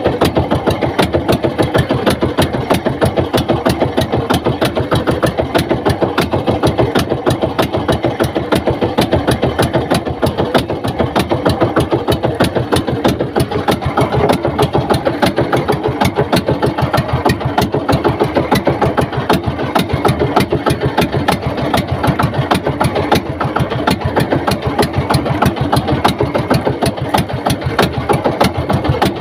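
Small fishing boat's engine running steadily, with a rapid, even throbbing beat that does not change.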